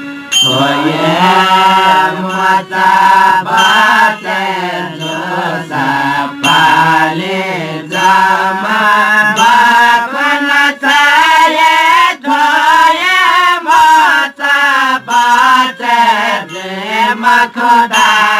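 Newari devotional folk song sung by a group of Jyapu men in a chanting style, with harmonium, small tah cymbals and lalakhi barrel drum accompanying. A new sung phrase starts just after a brief dip at the beginning.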